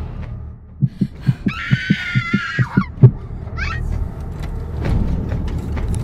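Horror sound effects over a low steady rumble: a run of about ten dull thumps over two seconds, with a high wavering shriek over the middle of them, then a short falling squeal.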